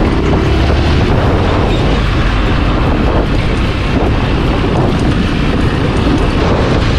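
Vehicle driven along a rough dirt track, with steady engine and road rumble under heavy wind buffeting on the microphone.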